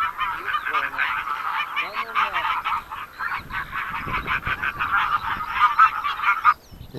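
Many geese honking together, a dense, continuous stream of calls that cuts off suddenly near the end.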